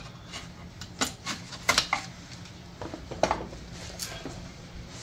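Sharp plastic and metal clicks and knocks of a wiring connector being pried off its bracket under a car's engine. A handful of separate clicks, with a quick cluster just before two seconds in.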